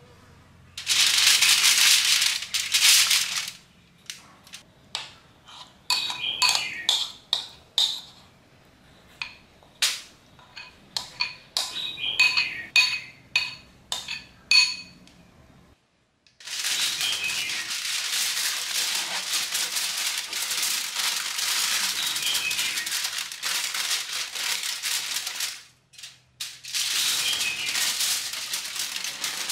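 Aluminium foil rustling as the marinated chicken is dropped onto it. Then a metal spoon clicks and scrapes against a ceramic bowl in a string of sharp, slightly ringing taps as the marinade is spooned out. After that comes a long stretch of continuous foil crinkling as the foil is folded up around the chicken.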